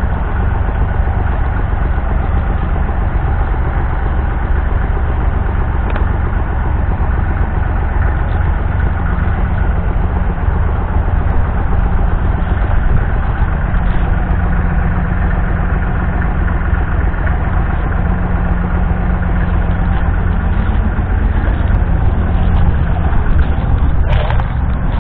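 Ford New Holland 8340 tractor's 7.5-litre six-cylinder diesel engine idling steadily.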